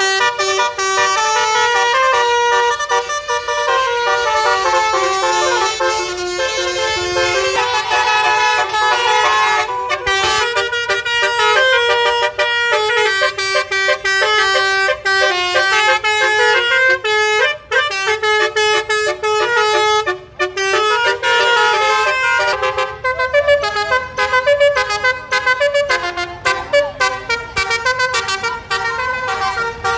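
Musical multi-tone air horns ('telolet' horns) playing melodies, the notes stepping up and down in pitch. Near the end they turn to short, rapid, choppy toots.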